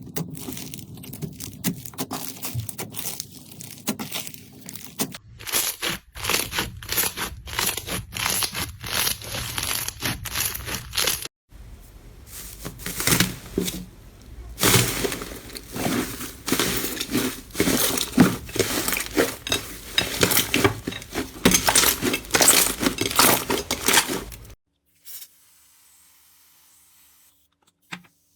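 Slime being squeezed, pressed and poked, giving dense crackling and popping. It comes as several short clips that cut off abruptly, and the last few seconds are near silence.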